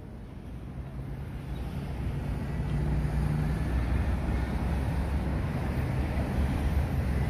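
Night street ambience: a steady low rumble of traffic from a nearby road, fading in over the first couple of seconds.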